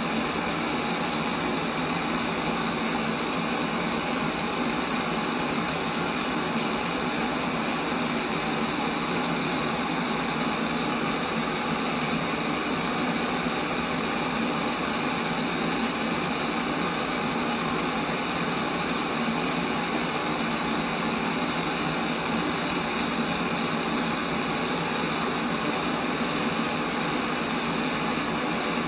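Hand-held gas torch on a yellow fuel cylinder, its flame hissing steadily as it heats the flux-coated seam of a gasoline stove's fuel tank for brazing the top plate on.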